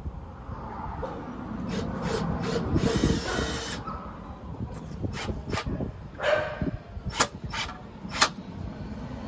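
A small sign plaque being handled and pressed against a wall: rubbing and scraping, with a rasping stretch about three seconds in, then several sharp taps in the second half.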